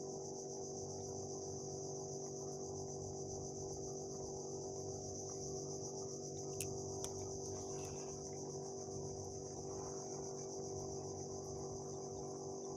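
Steady high-pitched insect buzzing over a steady low hum, with two sharp clicks about six and a half seconds in.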